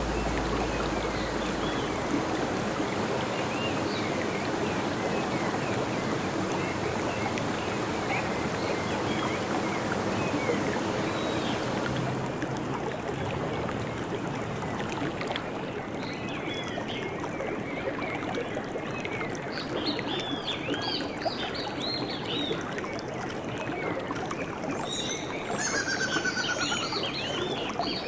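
A stream running steadily over stones, with birds chirping, more often in the second half, and a quick trill near the end.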